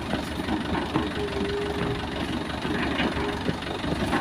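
Heavy diesel engine running steadily at low revs, with a thin steady whine partway through.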